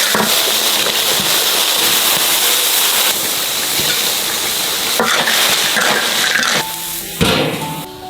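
Food sizzling in a hot wok, a loud steady hiss that drops away about six and a half seconds in, followed by a single knock. Soft background music plays underneath.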